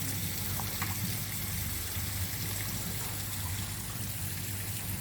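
Steady trickle of running water, with a low steady hum underneath.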